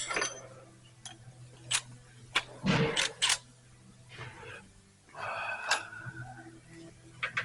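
Hand tools and metal engine parts clinking and knocking as accessories come off a car engine. There are scattered clicks, a louder rattle about three seconds in, and a short ringing scrape a couple of seconds later.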